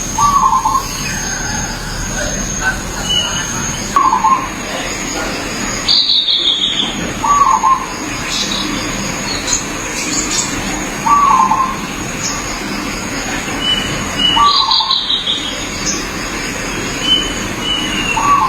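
Zebra dove (perkutut) cooing, a short phrase repeated about every three and a half seconds. Twice a higher, falling call from another bird cuts in, over a steady thin high whine and background hiss.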